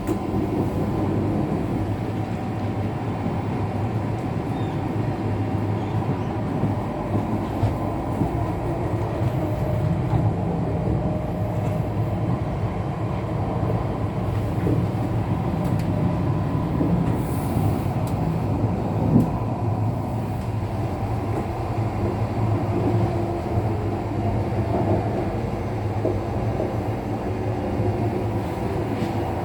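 Hokuriku Shinkansen train running, a steady rumble of wheels and air heard inside the passenger car.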